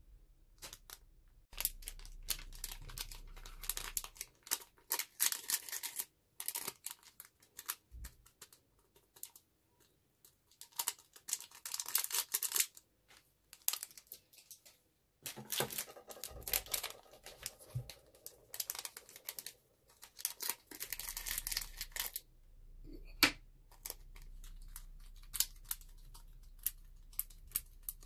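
Small clear plastic bags of glitter crinkling as they are handled and shaken, in several bursts of crackle with short pauses and a few clicks between.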